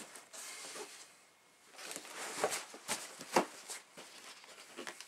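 Cinch straps on a 5.11 Rush 72 backpack being pulled and adjusted by hand: nylon webbing and pack fabric rustling, then a few sharp clicks and snaps in the second half, the loudest a little past the middle.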